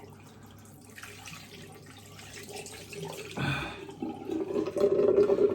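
Water running from a tap into a sink, coming on about four seconds in and then flowing steadily.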